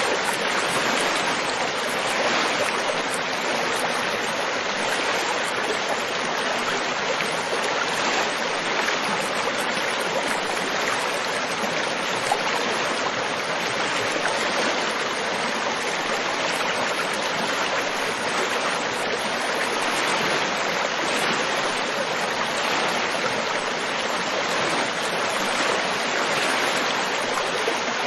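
River water flowing steadily over rocks: a continuous, even rush of moving water with no breaks.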